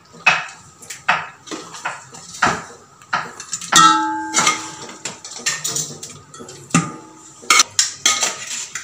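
A metal spoon knocking and scraping against a small metal biriyani pot as chicken masala is spooned in. There is a run of sharp clicks, and a ringing clang about four seconds in.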